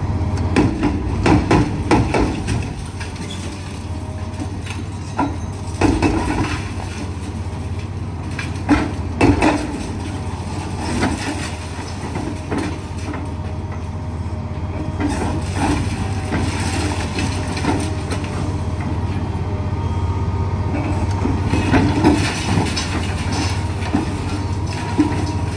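Liebherr 954 excavator's diesel engine running with a steady low drone, under irregular knocks and crashes from hydraulic-breaker demolition of concrete and metal. The loudest hits come in the first two seconds, about six and nine seconds in, and again a few seconds before the end.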